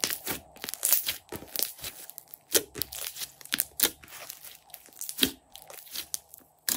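Hands squeezing, folding and pressing a thick, glossy slime, making a fast, irregular run of sharp sticky clicks and pops, with a few louder pops through the middle.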